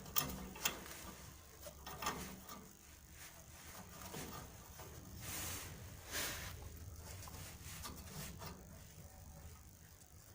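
Handling noises: two sharp clicks in the first second and another about two seconds in, then two brief rustling scrapes over a faint low hum.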